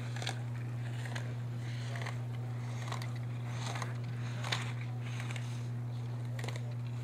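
A steady low electrical hum, with faint short scraping swishes about once a second.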